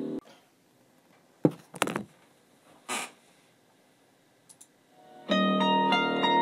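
Plucked-string background music stops just after the start, leaving a few seconds of quiet broken by several short, sharp noises. Harp-like plucked-string music begins again about five seconds in.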